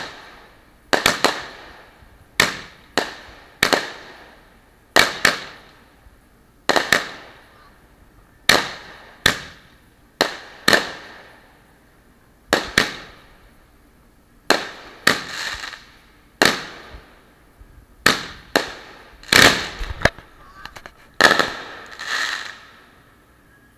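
Aerial fireworks bursting in a steady run of sharp bangs, about one a second, each with a short fading tail.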